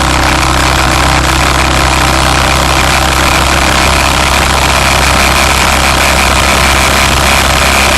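Vehicle engine running steadily, heard from on board, with an even road and wind noise over a low, unchanging engine hum.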